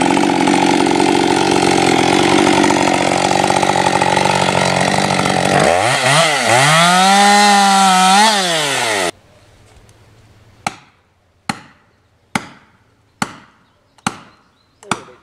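Husqvarna 550 XP two-stroke chainsaw running wide open as it bores into a tree trunk; about six seconds in the revs drop and rise twice, and the sound cuts off abruptly near nine seconds. Then come six sharp blows on wood, a little less than one a second.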